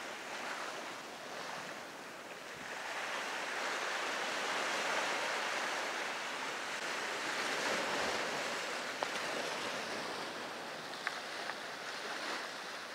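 Ocean surf washing over a rocky shoreline: a steady rush that swells a few seconds in and eases off toward the end. A few faint small clicks come late on.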